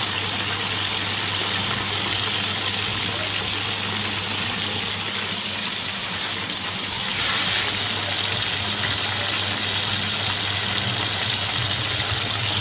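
Steady sizzling hiss of birds deep-frying in hot oil, swelling a little about halfway through, with a steady low hum underneath.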